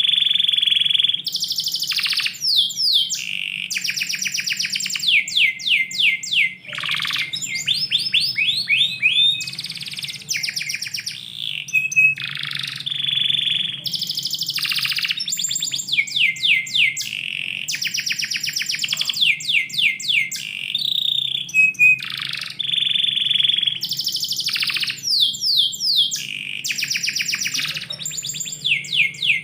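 Domestic canary singing a long, continuous song of fast trills of rapidly repeated notes and held whistled tones, one phrase after another with barely a pause.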